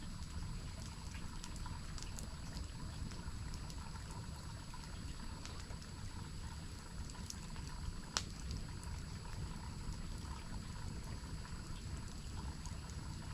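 Steady rush of falling water from a waterfall, with scattered small crackles and pops from a campfire and one sharper pop about eight seconds in.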